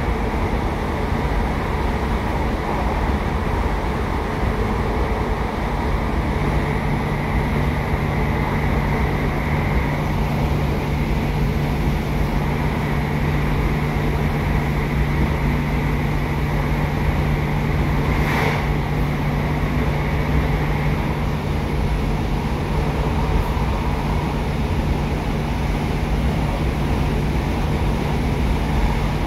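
British Rail Class 150 Sprinter diesel multiple unit heard from inside the carriage while under way: its underfloor Cummins 14.6-litre turbo-diesel engine runs with a steady low hum that settles into a held tone a few seconds in, over continuous wheel-on-rail rumble. A single short click comes about two-thirds of the way through.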